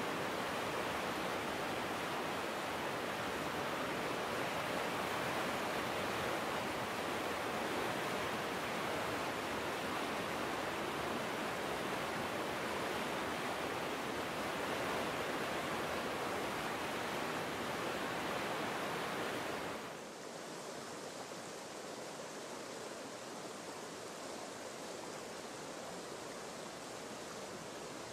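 Virgin River water rushing steadily over a rocky riverbed. About two-thirds of the way through it drops to a quieter, softer flow.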